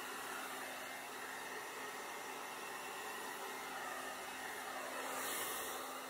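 Handheld hair dryer running with a steady rush of air, briefly louder and hissier about five seconds in.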